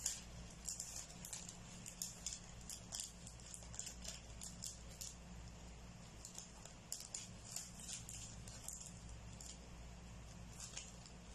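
Light, irregular crinkling and ticking of a thin wrapper being folded by hand around a small apple pie, over a steady low hum.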